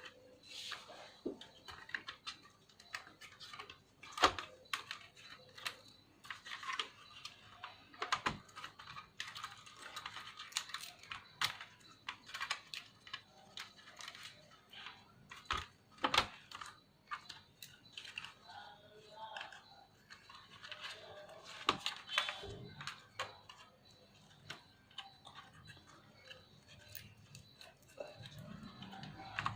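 Irregular clicks, taps and knocks of small laptop parts being handled and fitted back together, with light rustling between them, as a laptop is reassembled.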